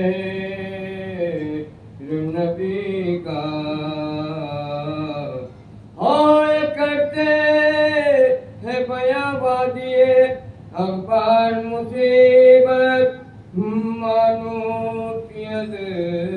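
A man chanting a soz, a mournful Urdu elegy, solo and unaccompanied, in long held, wavering notes with short breaths between phrases; the phrase starting about six seconds in is louder.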